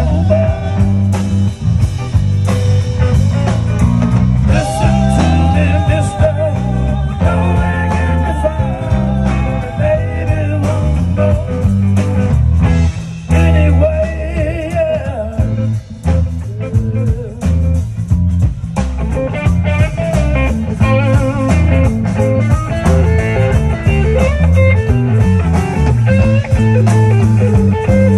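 Live rock band playing a blues-rock song, with electric guitar and a strong, moving bass line over a drum kit.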